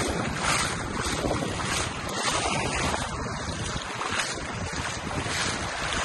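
Small waves washing over shallow water at the shoreline, with wind buffeting the microphone. The noise is steady, with small swells in level.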